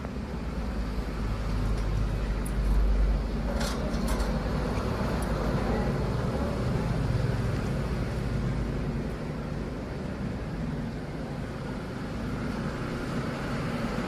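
Steady low rumble of background noise, with a couple of short sharp sounds about four seconds in.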